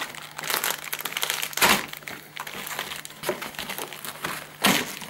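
Plastic packaging crinkling and rustling as it is handled, with two louder crackles, one under two seconds in and one near the end.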